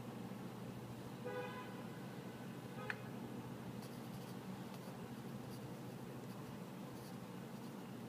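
Mechanical pencil scratching lightly on sketchbook paper in short, irregular strokes from about four seconds in, over a steady low hum. A brief pitched toot comes about a second in and a single sharp click near three seconds.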